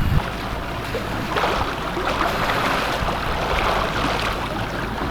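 Sailing yacht under way: steady rush of water along the hull over a low, even hum.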